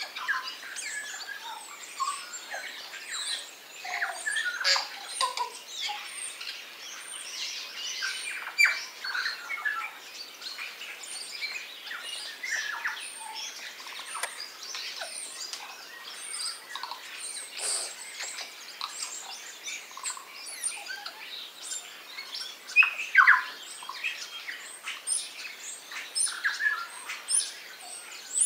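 A mixed chorus of birds chirping and whistling over one another, a busy overlapping stream of short calls with a few louder ones standing out. The birds feeding with the kererū in this fruiting tree include tūī, bellbirds, kākā, thrushes and starlings.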